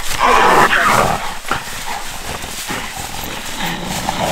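Catch dogs and a stabbed wild hog struggling in dry leaves: a loud animal cry for about the first second, then scuffling and rustling.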